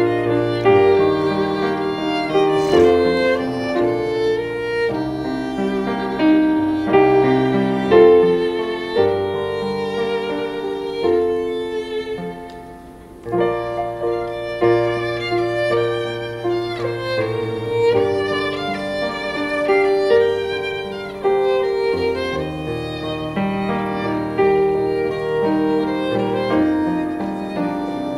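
Instrumental music led by a violin playing a slow melody over sustained low notes, with no singing. It softens briefly about halfway through, then carries on.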